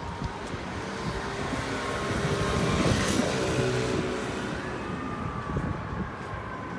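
A motor vehicle passing by on the street, getting louder to a peak about three seconds in, its engine pitch dropping as it goes past and fades, over steady city traffic noise.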